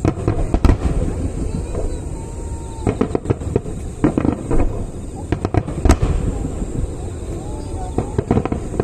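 Fireworks finale: a rapid series of aerial shells bursting with sharp cracks and crackles over a continuous low rumble. The cracks come in clusters, and the loudest bang falls about six seconds in.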